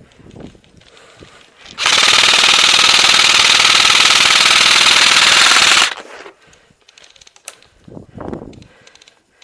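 Airsoft electric rifle firing one long, loud full-auto burst of about four seconds, a fast, even buzzing rattle that starts about two seconds in and stops sharply.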